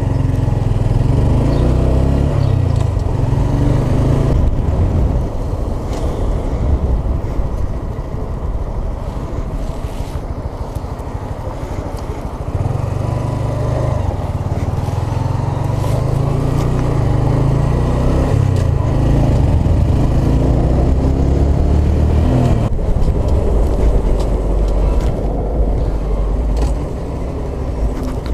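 2017 Honda Grom's 125 cc single-cylinder engine running under the rider, its pitch rising and falling as it revs and eases off through the gears. It goes quieter for a few seconds near the middle as the bike slows, then pulls away again, with wind rumbling on the microphone throughout.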